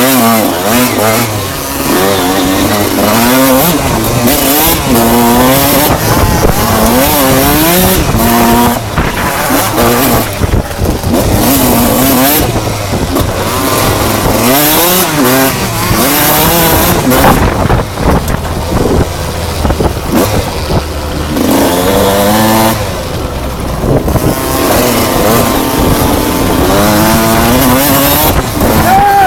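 Enduro motorcycle engine ridden hard, its pitch climbing and dropping over and over as the throttle opens and closes through the gears.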